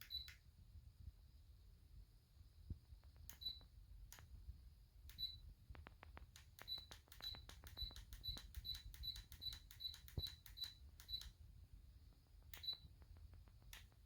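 Faint button presses on a ceiling fan light's remote control, each a click answered by a short high beep. A few presses come spread apart, then a quick run of about a dozen at roughly three a second.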